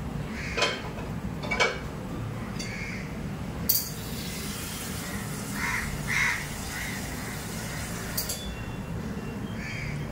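A metal-rimmed pan lid lifted off with a clink, then a wooden spatula stirring and scraping rice in the pan, with a few sharp knocks and clinks against the metal. Under it runs a steady low hum, and several short calls sound in the background around the middle.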